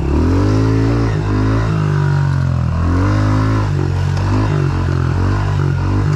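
A Honda CRF110F pit bike's small single-cylinder four-stroke engine revving up and down over and over as the rider goes on and off the throttle.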